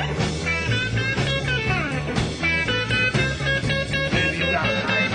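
Live electric blues band playing an instrumental passage with a steady beat and bending lead lines.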